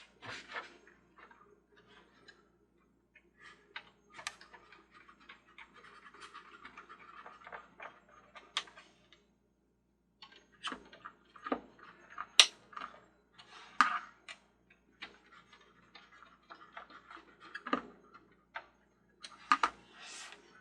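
Irregular clicks, knocks and scraping of hard plastic parts being handled and pressed into place in a toy carousel's gear mechanism, with a stretch of scratchy rustling in the first half.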